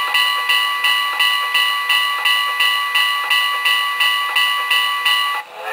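Bell ringing steadily, about two strokes a second, played through the small speaker of a talking wall clock as part of its hourly steam-locomotive sound effect; it stops just before the end.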